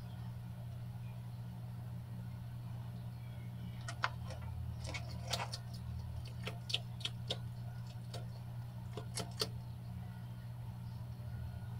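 A bearded dragon chewing superworms: a run of about a dozen sharp, crisp crunching clicks, starting about four seconds in and stopping a few seconds later, over a steady low hum.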